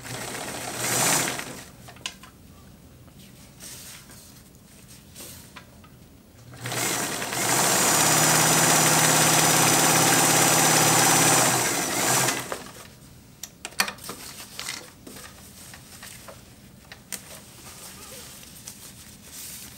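Kenmore 1752 electric sewing machine running steadily for about five seconds, stitching through two layers of silicone-coated polyester fabric. It starts about seven seconds in and stops about twelve seconds in. Quieter fabric rustling and a few clicks come before and after.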